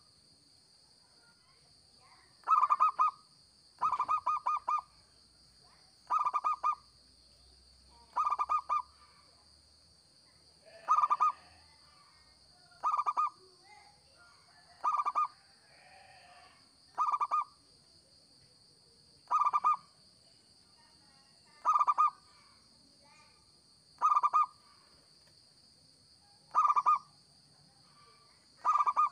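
Zebra dove (perkutut) cooing: a short rippling phrase of quick notes, repeated about every two seconds.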